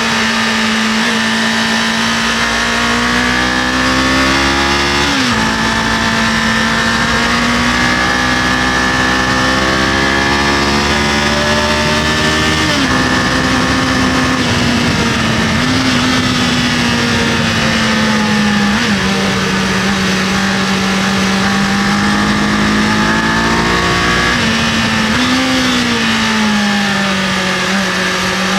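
Kawasaki KLE500 motorcycle's parallel-twin engine running under way, its note rising and falling with the throttle, with abrupt drops in pitch about five seconds in and again about thirteen seconds in. Wind rushing over the microphone runs underneath.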